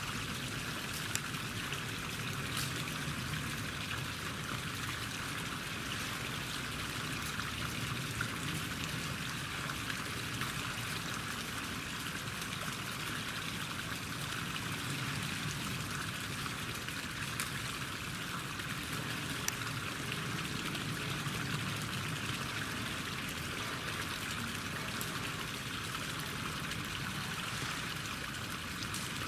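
Steady rush of running water, with a few faint ticks here and there.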